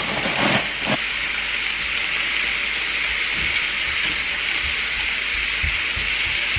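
Peas, chicken and sweet potato sizzling in a hot frying pan with a steady hiss, stirred with a spatula that gives a few soft knocks against the pan.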